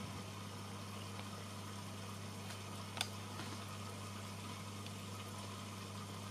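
Aquarium equipment running: a steady low pump hum with faint bubbling water, and a single click about halfway through.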